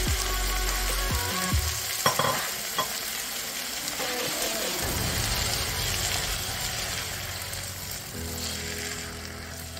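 Chopped red bell peppers, onion and cashews sizzling in a hot nonstick pan, stirred with a silicone spatula, with a few light knocks about two seconds in.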